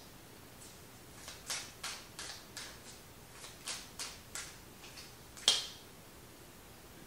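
Tarot cards being handled: a dozen or so light, quick taps and flicks of card against card and tabletop, the loudest about five and a half seconds in.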